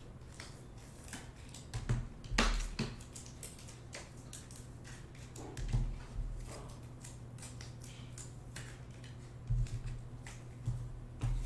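Trading cards and their packaging being handled: scattered soft clicks, taps and rustles of wrappers and card stock, the loudest about two and a half seconds in, over a low steady hum.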